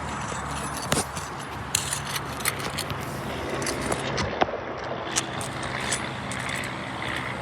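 Hand work on asphalt roof shingles: light scraping and scattered sharp clicks as shingles are lifted and nails worked loose, over a steady low hum.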